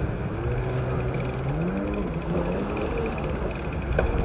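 An engine running, its pitch rising and falling several times as it revs up and eases off, with a fast, light ticking over it.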